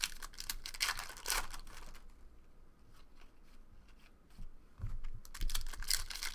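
Trading-card pack wrappers crinkling and cards being handled. The rustling comes in two bursts, one early and a second near the end, with scattered clicks between.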